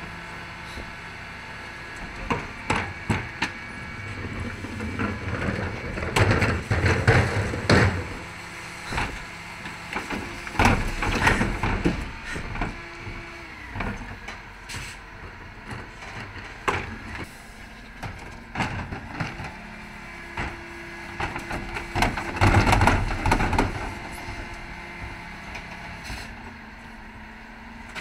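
Dennis Elite 6 refuse truck with its Terberg TA-DE bin lift cycling, over a steady hydraulic and engine hum. Wheelie bins are lifted and tipped into the rear hopper, with three loud spells of banging and clattering as the bins knock and the rubbish drops in.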